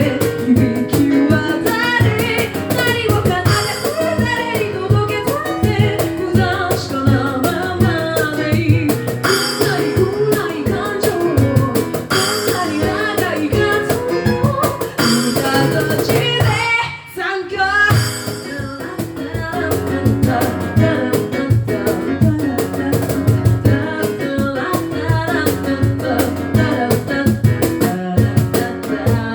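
A cappella group singing a J-pop song in several vocal parts over a vocal-percussion beat. The music breaks off briefly a little over halfway through, then comes back in.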